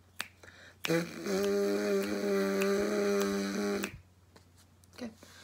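Free lip buzz without a mouthpiece: a brass player's lips buzz one steady, uninterrupted pitch for about three seconds, starting about a second in. Steady clicks about every 0.6 seconds keep the beat underneath.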